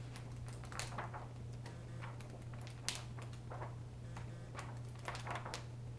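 Pages of a paperback coloring book being turned and handled: scattered short paper flicks and rustles, the sharpest about three seconds in, over a steady low hum.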